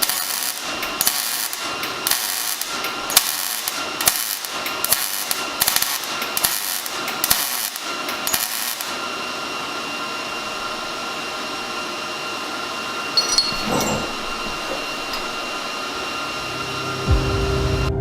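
Welding on the truck's steel suspension gussets: a quick string of short welding bursts through the first half, then a steadier hiss. Music comes in near the end.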